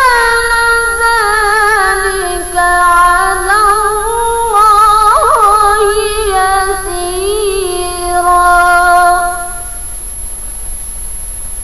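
A woman reciting the Qur'an in melodic tilawah style, drawing out one long phrase with wavering, ornamented melisma. The voice stops about ten seconds in, leaving only a steady hiss.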